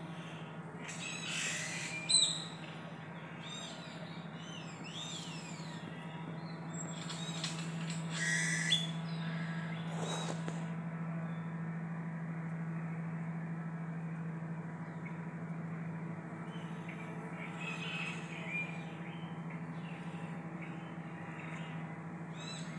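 Steady low hum of Melipona beecheii stingless bees at their wooden hive box, with birds chirping and whistling over it in short bouts, loudest about two seconds and eight seconds in.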